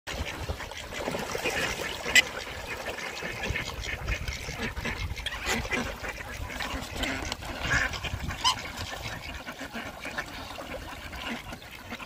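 A flock of ducks, coots and black swans crowding for food, with quacks and short honking calls mixed with splashing over a low rumble. A single sharp sound about two seconds in stands out as the loudest moment.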